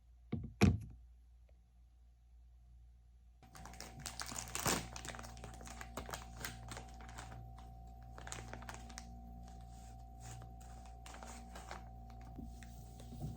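Two sharp knocks within the first second, then from about three and a half seconds in a run of irregular light clicks like typing on a computer keyboard, over a steady low hum.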